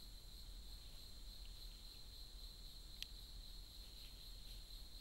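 Faint, steady, high-pitched trilling of forest insects in chorus, with one brief sharp click about three seconds in.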